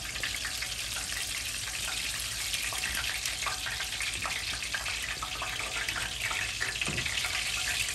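Tacos deep frying in very hot oil: a steady sizzle with small crackles and pops throughout. A soft knock comes about seven seconds in.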